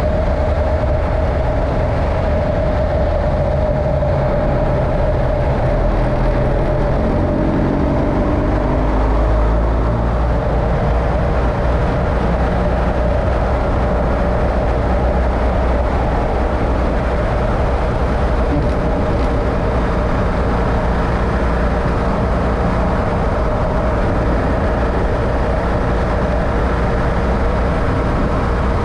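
A road vehicle driving steadily, with a constant low engine and road rumble; the engine's pitch rises briefly about six to ten seconds in.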